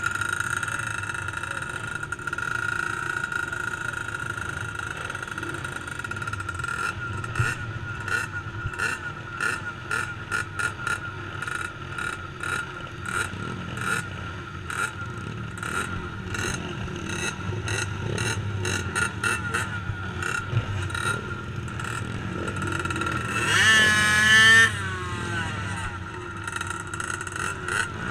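Small youth ATV engines racing, revving up and down as the quads run the track, with one quad passing close by with a loud rise and fall in pitch about 24 seconds in.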